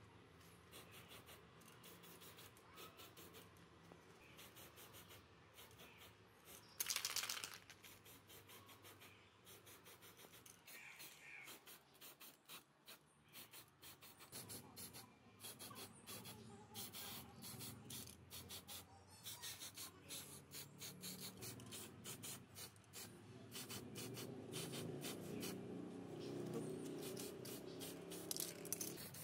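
Aerosol spray paint can hissing in many short, faint bursts, with one longer, louder burst about seven seconds in.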